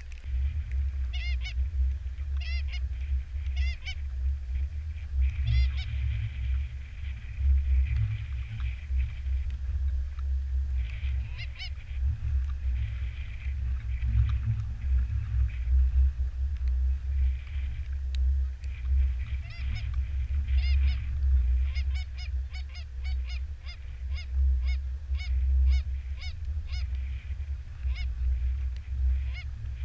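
Canada goose honks: a few scattered honks, then near the end a fast run of about two honks a second. A steady low rumble runs underneath.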